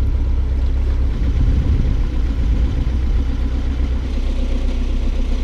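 Narrowboat engine running steadily while the boat is brought in to moor.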